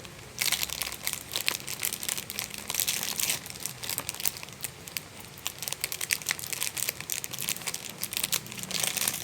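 Gift wrapping being handled and pulled open by hand: dense, irregular crinkling and crackling throughout, as the ribbon and packaging come off.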